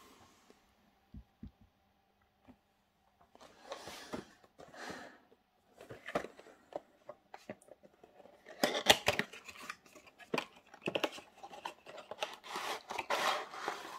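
Packaging of a model railway coach being handled and opened: a few faint clicks, then irregular rustling and scraping bursts with small clicks, louder in the second half.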